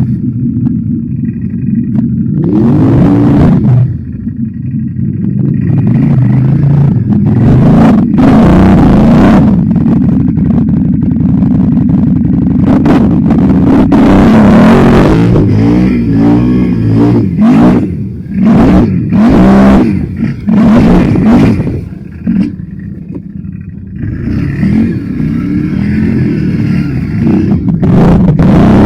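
ATV engine revving hard and repeatedly, its pitch climbing and dropping again and again, with short rushes of noise over it.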